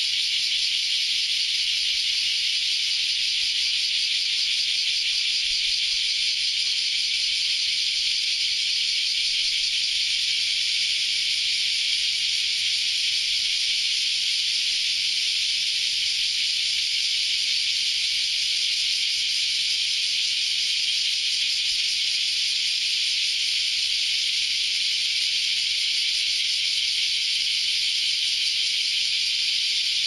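A dense chorus of many cicadas singing together in the trees: a steady, high-pitched, unbroken buzzing hiss at an even level.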